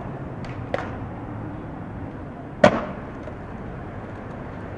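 Skateboard hitting stone: two light clicks of trucks or wheels on a granite ledge about half a second in, then one loud wooden clack of the board striking the ground past the middle, over a steady background hiss.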